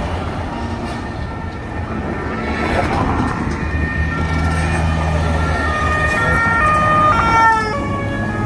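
Two-tone emergency-vehicle siren over street traffic. Its alternating notes come in about two seconds in, grow louder, and fall away sharply about seven and a half seconds in.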